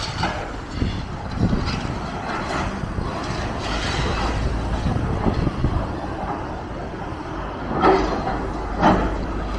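Demolition machinery working on a building: a steady low rumble with scattered clatter, and two louder knocks near the end.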